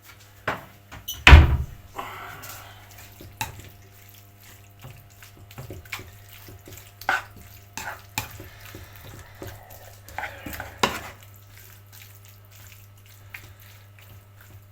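Kitchen clatter while cooking: a loud knock about a second and a half in, then scattered clicks and knocks of pans and utensils over a steady low hum.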